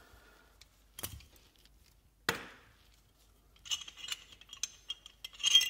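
Steel pistol parts of an HK USP Compact .45 knocking and clicking as the slide and barrel are taken apart during field-stripping. There is a knock, then a sharp click, then a run of ringing metal clinks near the end.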